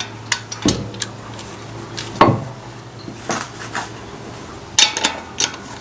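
Scattered metallic clinks and knocks of hard metal parts or tools being handled and set down, about half a dozen separate hits with a cluster near the end.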